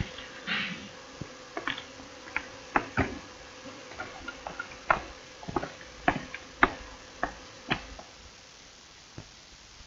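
Faint irregular clicks and pops, about two a second, over a faint steady hum: surface noise of an old film soundtrack. The clicks thin out near the end.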